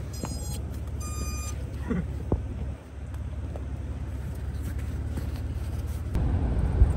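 Steady low rumble of a vehicle on the move, growing louder near the end, with a short electronic beep about a second in and a few faint clicks.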